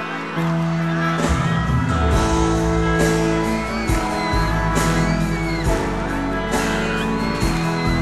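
A live band starts a love song's instrumental introduction about half a second in, with bass, held chords and a steady beat, while the audience whoops and cheers over it.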